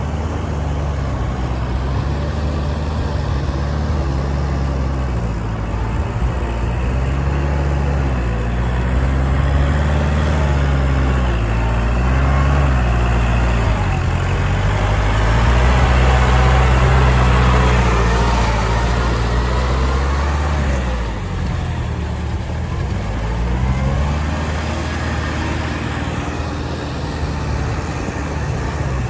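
Kubota tractor diesel engines working a field under load, one passing close by: a steady drone whose pitch wavers up and down, growing loudest a little past halfway, then dropping and shifting pitch.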